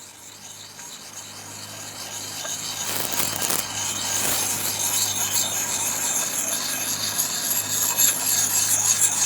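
A sharpening puck is stroked against the steel edge of an axe in a continuous scratchy rasp that grows steadily louder. As the burr comes off the edge, the stroking takes on a ringing note: the steel is singing.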